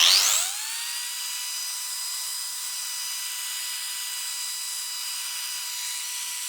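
Highland Park wet grinder/polisher motor spinning up fast and then running at a steady high whine, with a hiss of water over it. The pad is being spun to fling off water and wash the grit from its surface before the next, finer pad goes on.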